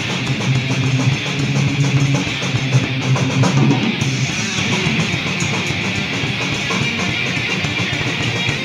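Raw black/thrash metal recording with distorted electric guitar riffing. The riff changes about four seconds in, and the low chugging gives way to a steadier, denser wash.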